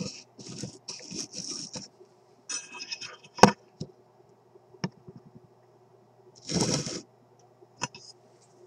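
Pliers gripping and working the wires and solder lugs of an old radio chassis to pull out a capacitor: bursts of metallic scraping and rattling in the first three seconds, then scattered sharp clicks, the loudest about halfway through, and a brief louder rustle later on.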